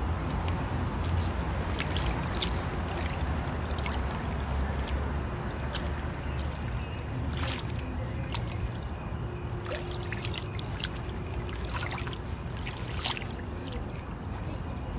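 Shallow river water lapping and trickling at the shoreline, with scattered small ticks and splashes over a steady low rumble.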